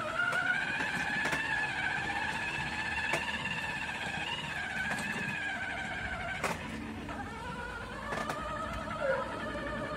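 Electric motor and gearbox of a battery-powered ride-on toy motorcycle whining as it drives, rising in pitch as it speeds up at the start, then running steadily and dipping slightly past the middle. A few light clicks come through now and then.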